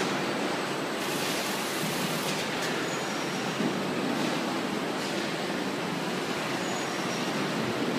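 Steady mechanical din of a carton packing line running: roller conveyors and packaging machinery, with no distinct knocks or thumps.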